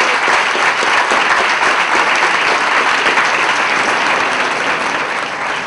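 Audience applauding, a steady dense clapping that slowly thins out near the end.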